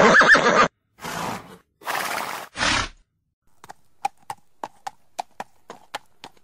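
A horse whinnies briefly, then gives three short breathy blows, then its hooves start walking on hard ground, a clip-clop of about three steps a second.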